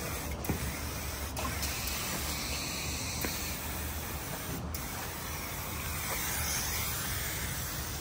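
Aerosol spray paint can hissing steadily as paint is sprayed onto a car's bodywork, with a brief break a little past halfway.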